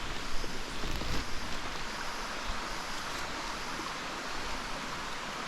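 Steady rush of a waterfall stream's water pouring over rocks, with a couple of brief knocks in the first second or so.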